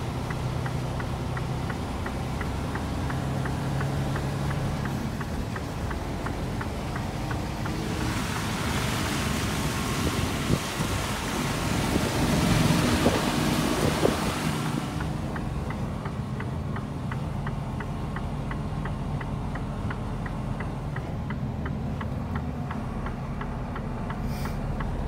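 Inside a lorry cab: the truck's diesel engine running steadily at low speed as it crawls along a rough track, with a steady low drone and a faint regular ticking. For several seconds midway a louder rushing hiss of air or tyre noise rises over it, then dies away.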